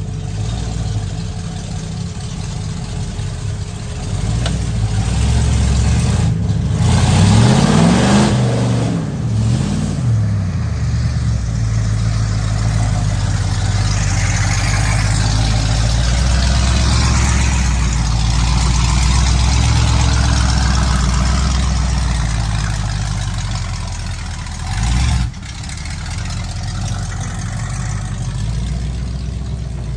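Ford pickup mud truck's engine revving and running under load as it drives through muddy water. About seven seconds in it revs up and down twice, then it holds a steady pull with tyres churning mud and water, and a short knock comes about 25 seconds in.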